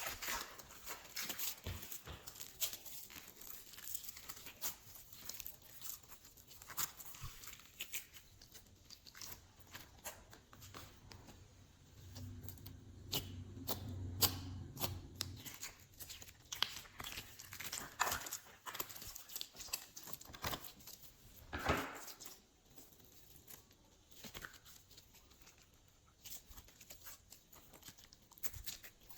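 Hands kneading and stretching glossy slime mixed with add-ins: an irregular stream of small sticky clicks, pops and crackles.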